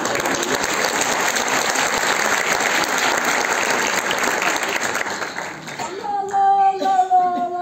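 Audience applauding, a dense steady clapping that dies away about six seconds in, when a woman's voice takes over near the end.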